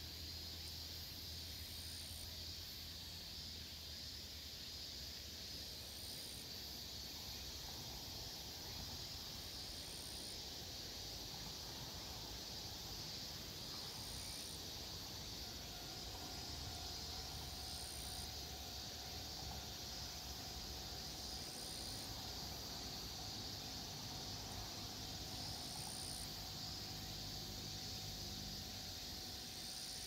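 Insects droning steadily, with a short high chirp repeating about every four seconds. A faint steady hum comes in about halfway.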